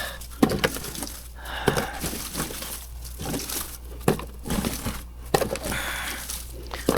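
Dry, old chestnut burrs rustling and crunching as they are gathered up by hand, an irregular crinkling with scattered sharp clicks.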